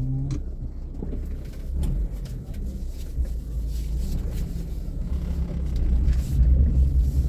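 Suzuki Karimun kei car driving, heard from inside the cabin: a steady low engine and road rumble with a few light knocks. The rumble grows louder near the end.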